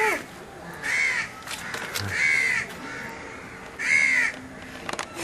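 A bird calling repeatedly: four short calls spaced about a second apart.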